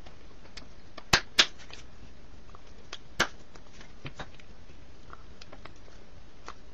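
Hands tapping and clapping together in a few sharp clicks over a steady background hiss: two close together about a second in, a third about three seconds in, and fainter ticks between.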